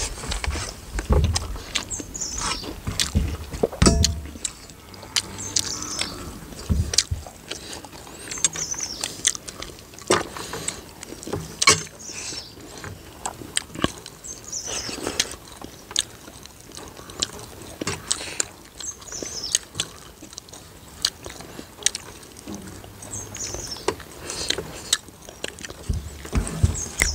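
Close-up eating sounds: fingers mixing and scooping rice on steel plates and mouths chewing, making many short clicks, taps and wet smacks at irregular intervals.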